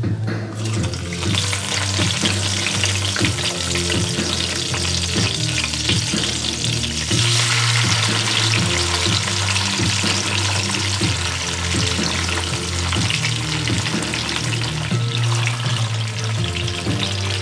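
Food frying in hot oil in a pan, a continuous sizzle that starts about half a second in and grows louder about seven seconds in.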